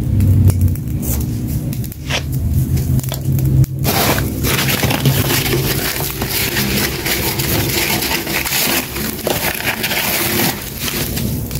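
Dense crunching and crackling that starts about four seconds in and goes on, over background music.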